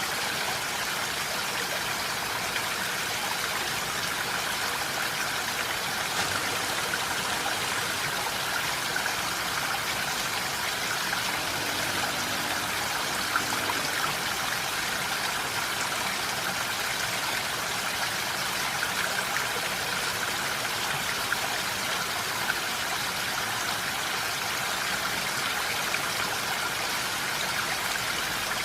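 Steady rain falling in a forest, an even hiss with a few brief louder drop ticks.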